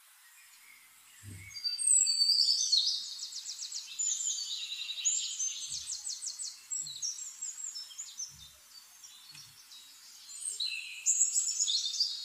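Birds chirping in quick high trills and whistles, starting about a second and a half in, with another burst near the end.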